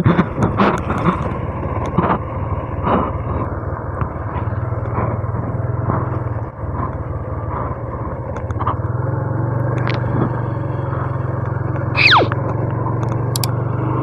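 A Honda Revo 110's small single-cylinder engine running at a steady cruise while the bike rattles over loose gravel, with scattered knocks from the bumps. Near the end comes a short falling whistle-like sweep, then a few clicks.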